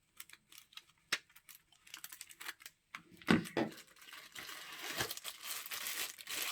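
Light clicks and taps of plastic handsets being handled, then two louder knocks, then plastic packaging crinkling and rustling continuously from about four seconds in as the handsets are unwrapped.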